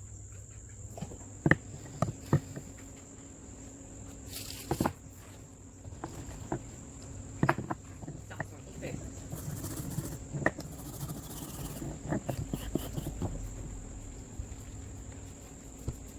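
Rusty steel lineman pliers being scrubbed by hand with brushes: scattered clicks and knocks of the metal jaws and brush against the bench, with short rasps of bristles scrubbing off rust and flaking blue paint.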